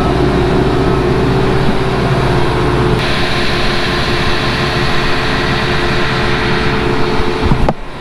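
Large diesel engine of a John Deere combine running steadily. About three seconds in the sound turns brighter and hissier, and it cuts off abruptly near the end.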